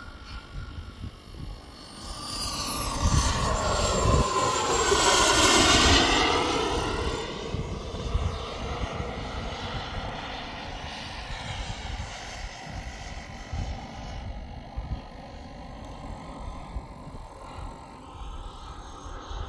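Mephisto turbine RC jet flying a pass. Its turbine whine rises in pitch as it approaches, is loudest about four to six seconds in, then drops in pitch as it moves away. A quieter steady turbine sound follows.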